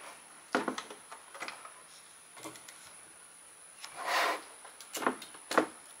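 Scattered light clicks and knocks of a hard plastic bird feeder being handled, with a short hiss about four seconds in.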